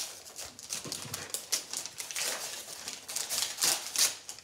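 Christmas wrapping paper being torn and crinkled off a small present in quick, irregular rips, loudest near the end.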